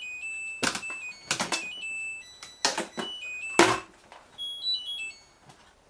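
Samsung washing machine's electronic tones stepping between a few pitches, the tail of its end-of-cycle chime, broken by several sharp clicks and knocks. About four and a half seconds in comes a short run of higher beeps.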